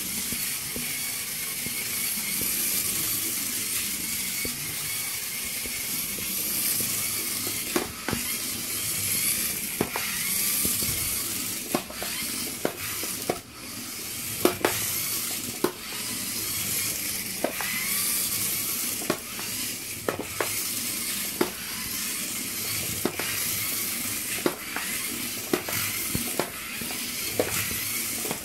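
LEGO 9V train motor running along plastic LEGO track: a steady high-pitched whir with scattered sharp clicks.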